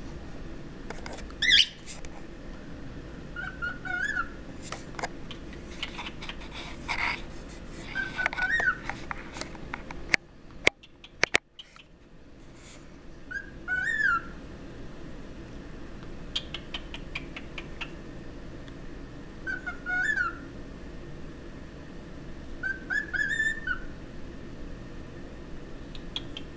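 Pet cockatiels whistling and chirping: short whistled phrases that glide upward, repeated every few seconds, with scratchy chirps in between. A few sharp clicks come about ten to eleven seconds in.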